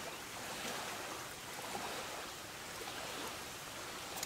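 Steady rush of a river flowing, with a couple of faint clicks as a small metal ferro-rod striker tool is handled.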